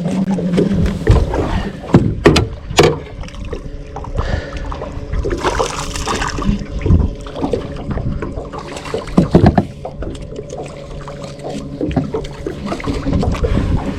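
Electric trolling motor humming steadily while water splashes and sloshes against the boat, with sharp knocks about two and three seconds in.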